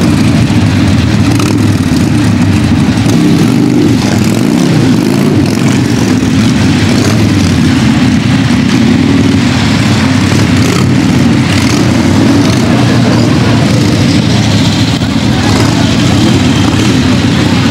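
Several motorcycle engines running together, a steady low engine sound.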